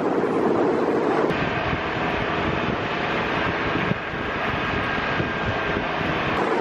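Pickup truck driving fast on beach sand: steady engine and tyre noise, then from about a second in heavy wind buffeting the microphone held out of the side window, with the engine running underneath.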